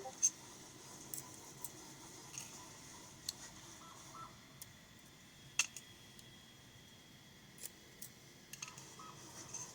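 Scattered small clicks and taps of metal lock parts and tools being handled as a pin-tumbler challenge lock is taken apart, about a dozen of them at uneven intervals, the sharpest just after the start and about halfway through.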